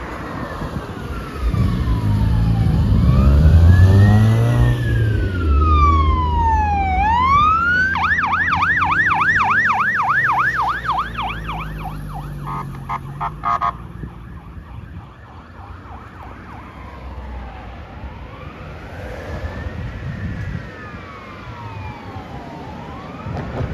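Fire engine and ambulance electronic sirens passing: a slow rising-and-falling wail, then a quick yelp about eight seconds in and a short rapid pulsing tone that cuts off near fourteen seconds, then a fainter wail as they move away. The fire engine's heavy engine rumble is loud in the first few seconds as it goes by.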